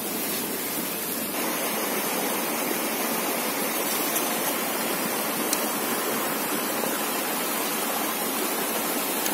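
Steady rushing of running water, with two faint clicks in the middle.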